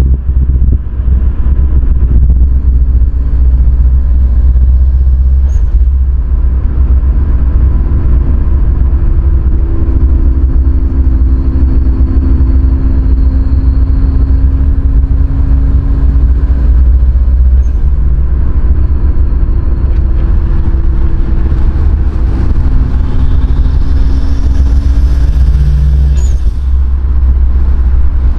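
Nissan Skyline R33's RB25DET turbocharged straight-six and aftermarket exhaust heard from inside the cabin while driving at highway speed. There is a steady, loud, deep drone, and the engine note shifts slightly in pitch a few times.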